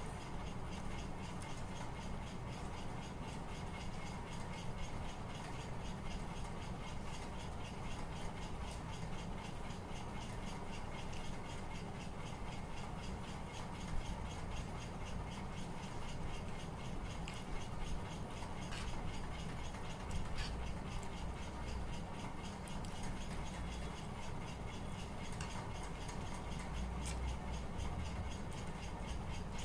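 Steady low hum and hiss of room noise, with a few light clicks about halfway through and a couple more soon after.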